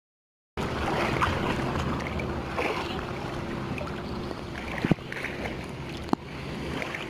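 A boat's engine running with a steady hum under a wash of wind and water noise, starting about half a second in; two sharp knocks come about five and six seconds in.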